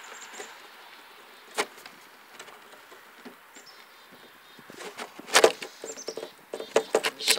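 Handling noise: a single sharp click about a second and a half in, then a cluster of clicks and rattles over the last few seconds, as the RC snow vehicle is picked up and worked on.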